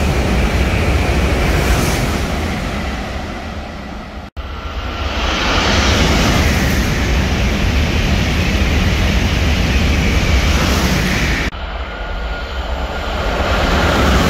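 SRT and KTX high-speed trains passing through a station at full speed: a loud, steady rush of wheel, rail and air noise. It breaks off suddenly about four seconds in and again about eleven and a half seconds in, as one pass cuts to the next.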